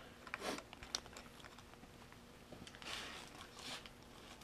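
Faint handling noises from small parts and packaging: a few light clicks near the start, then soft rustling about three seconds in.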